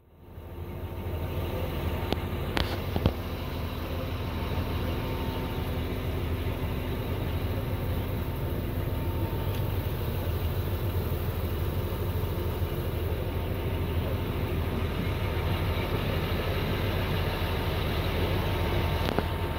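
A steady low rumble like a running motor vehicle, fading in over about the first second, with a couple of light clicks about three seconds in.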